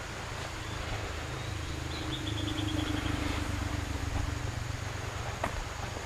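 A low rumble with a steady hum that swells in the middle and eases off again, and a bird's short rapid trill of about ten notes about two seconds in.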